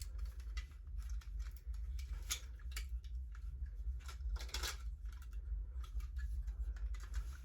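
Small clicks, taps and a short scrape of a diecast funny car model's body being fitted onto its chassis by hand, over a steady low hum.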